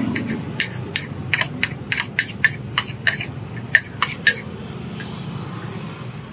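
Metal spoon clinking and scraping against a plastic plate while scooping up fried rice: a quick, irregular run of clicks that stops about four seconds in.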